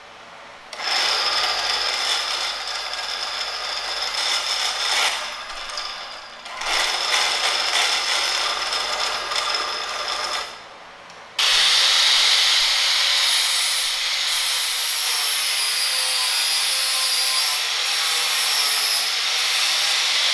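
A power tool working scrap wood: two runs of about four seconds each, a brief pause, then a louder, steady run of about nine seconds that stops near the end.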